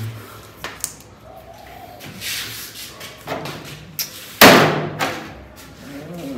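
A few light knocks and clicks, then one loud slam-like bang about four seconds in that rings on briefly in the room.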